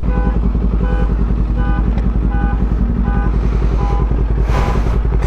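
Motorcycle engine running steadily at low revs, with a short electronic beep repeating about every 0.7 s over it. A rush of wind or engine noise builds near the end.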